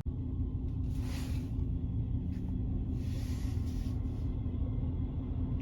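Car engines rumbling low and steady in street traffic, with two brief hissing swells, about one second and three seconds in.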